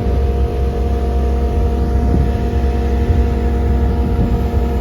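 Skid steer running a Sidewinder skid-steer mower attachment: a steady, loud engine drone with a constant high whine on top, showing that the mower runs.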